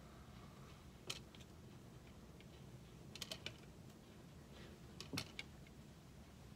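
Clothes hangers clicking and knocking on a closet rail as clothes are sorted through: a few faint, scattered clicks about a second in, in a cluster around three seconds and again near five seconds, over a low room hum.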